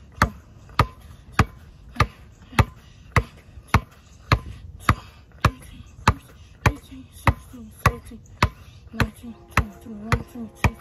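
Basketball dribbled in crossovers, bouncing on hard ground in a steady rhythm of a little under two bounces a second.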